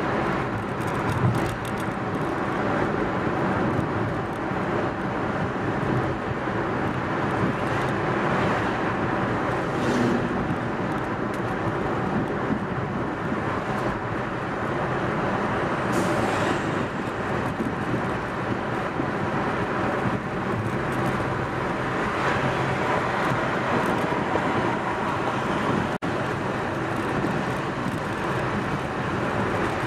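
A moving car's steady road and tyre noise, with engine hum underneath. A brief louder hiss comes about halfway through.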